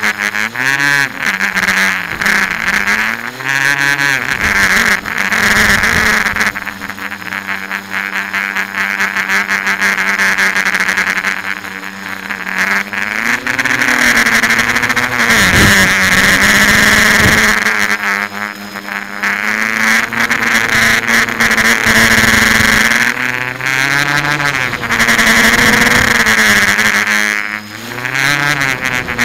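A tricopter's three electric motors and propellers buzzing close to the microphone, their pitch rising and falling as the throttle changes through the aerobatics. The pitch drops sharply twice near the middle.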